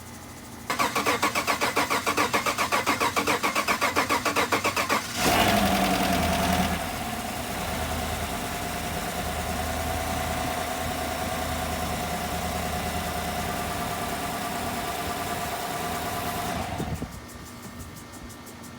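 Chevy 5.3L direct-injected V8 being cranked by the starter for about four seconds in even pulses, then catching, flaring up and settling into a steady idle. This is the first start after a cylinder-head and valvetrain rebuild with new pushrods and lifters. The engine sound drops away sharply about two seconds before the end.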